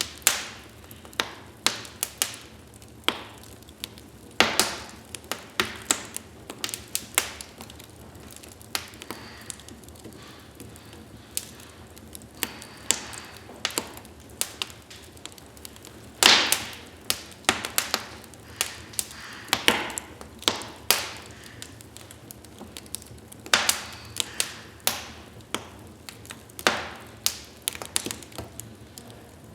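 Wood fire burning in a fireplace, crackling with irregular sharp pops and snaps over a soft steady hiss.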